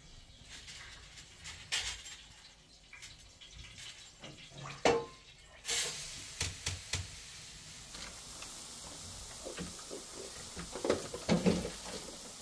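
A few scattered knocks and clinks, then a steady hiss that starts suddenly about halfway through and keeps going, with more knocks near the end.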